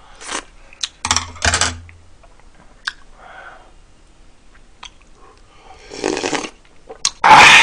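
Close-miked eating sounds: slurps of hot ramen and soup, with light clicks of chopsticks and a spoon against the bowls. The longest and loudest slurp comes near the end.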